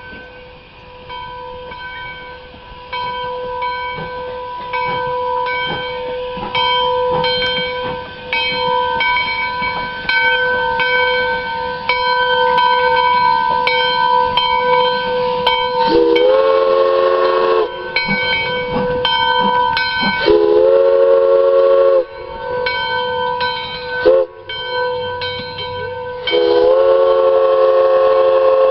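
Steam locomotive No. 110's chime whistle blowing the grade-crossing signal, long, long, short, long, each blast sliding up to pitch as it opens. A bell rings steadily beneath it, louder as the engine draws near.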